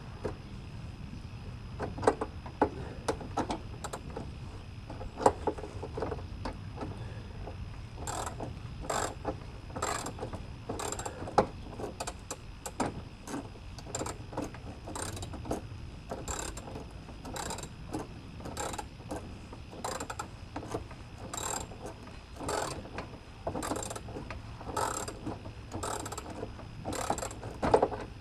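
Half-inch socket ratchet clicking as a bolt is worked in repeated short swings, sparse at first, then about once a second from roughly a third of the way in.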